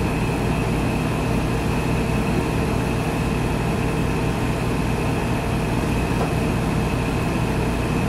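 A running machine's steady drone: a low hum under an even hiss.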